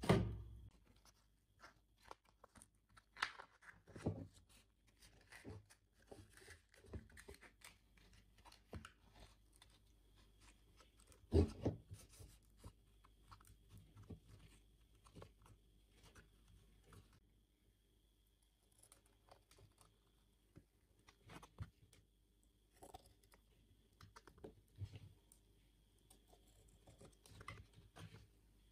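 Faint handling sounds of hands working PVC pipe and sandpaper: scattered small clicks and short rustles, with one louder knock about eleven seconds in.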